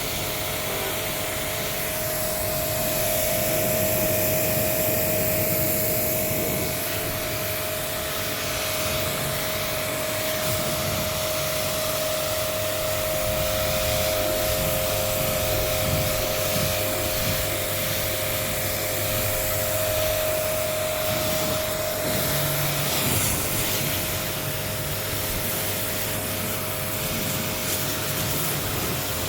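An electric machine running steadily with a continuous rushing hiss and a constant mid-pitched whine, during air-conditioner servicing.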